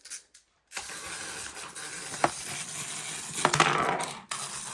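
Handling noise of small toys over a steady hiss: a sharp click about two seconds in, then a brief rattle lasting under a second.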